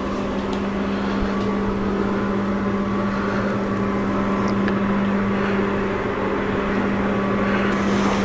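A steady machine hum with one constant low tone, unchanging throughout.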